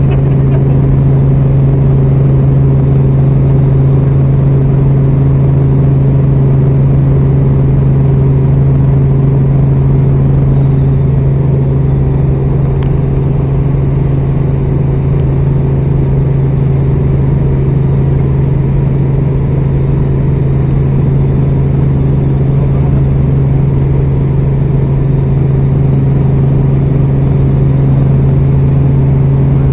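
Helicopter in flight: a loud, steady drone dominated by a strong low hum, with no change in pitch or level.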